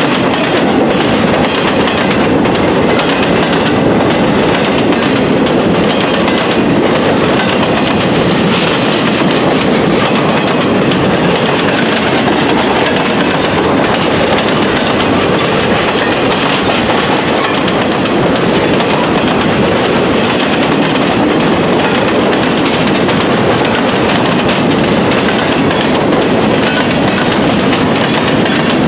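Freight cars of a long train, woodchip gondolas and boxcars, rolling past close by: a steady, loud rumble of steel wheels on the rails, with repeated clicks.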